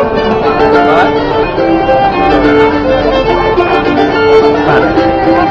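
Fiddle and mandolin playing a tune together. The fiddle carries the melody in bowed notes while the mandolin is plucked along with it.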